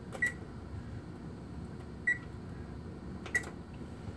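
Oven control keypad beeping as its buttons are pressed to set the oven to preheat to 350 degrees: three short high beeps, each with a small click, spread unevenly across a few seconds.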